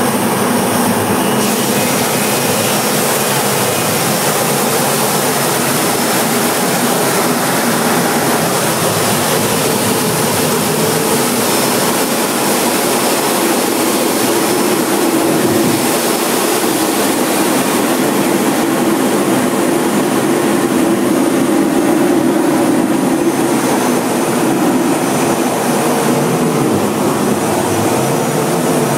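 Cockpit noise inside a T-45 Goshawk jet trainer in flight: its Rolls-Royce Adour turbofan and the rush of air over the canopy, loud and steady. A lower drone grows stronger about halfway through.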